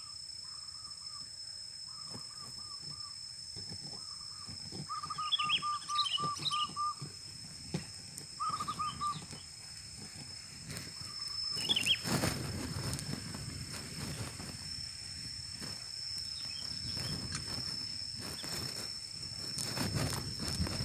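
Sooty-headed bulbul (kutilang) calls: short runs of quick repeated notes with a few higher chirps, over a steady high-pitched drone. From about halfway through, rustling and scattered knocks come in.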